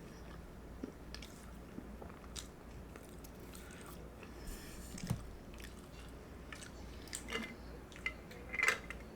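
Close-miked chewing and mouth sounds from a person eating: soft, scattered wet clicks and smacks, with a louder smack near the end.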